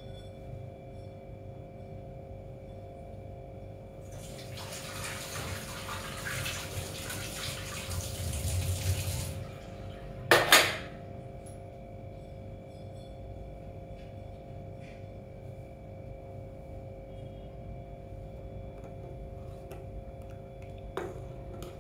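A water tap runs for about five seconds, then a short, sharp clatter, over a steady hum.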